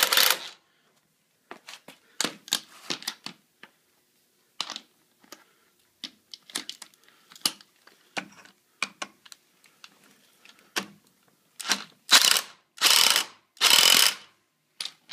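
Milwaukee M18 cordless impact driver hammering bolts tight on a scooter's belt-drive cover: a short burst at the start, then three bursts one after another near the end. Scattered light metallic clicks come in between.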